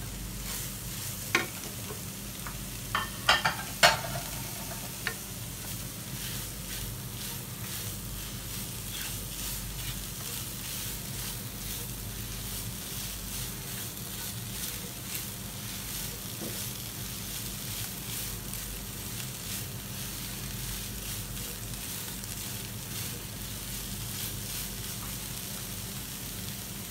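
Shredded chicken and sliced mushrooms frying in a non-stick pan with a steady light sizzle, stirred and scraped with a spatula. A few sharp knocks against the pan come in the first four seconds.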